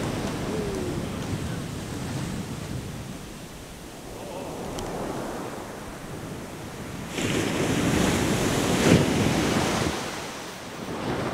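Surf breaking on a sandy beach, with wind buffeting the microphone; the sound swells as a wave breaks about seven seconds in and is loudest at around nine seconds.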